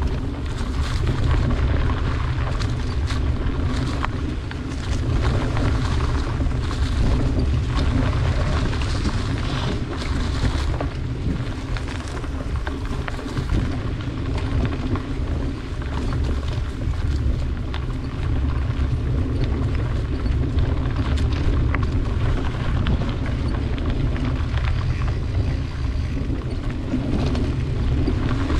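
A bicycle riding along a dirt trail, heard from the rider's camera: a steady low wind rumble on the microphone with tyre noise over the ground. Occasional clicks and rattles come from the bike.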